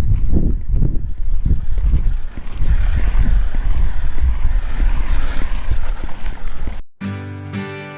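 Wind buffeting on the microphone, a loud gusting rumble, with a faint wavering whistle through its middle part. It cuts off suddenly about seven seconds in and acoustic guitar music begins.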